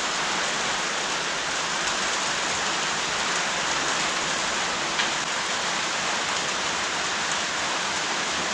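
Steady rain, heard as an even hiss, with one short click about five seconds in.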